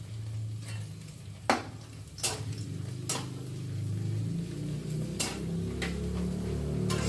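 A metal spoon clinking and scraping against a frying pan about six times while kerupuk crackers fry in oil, over a low steady hum that grows louder toward the end.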